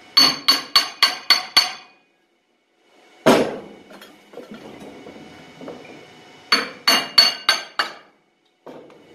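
Hammer tapping a snowmobile drive clutch on a vintage Rotax engine's crankshaft to knock it loose: two quick runs of about seven ringing metal strikes, about four a second, with a single heavier knock between them.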